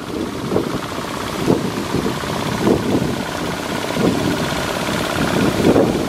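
Kubota RT140 walking tractor's single-cylinder diesel running under load as its cage wheels churn through a flooded, muddy paddy, with repeated surges of splashing water and mud.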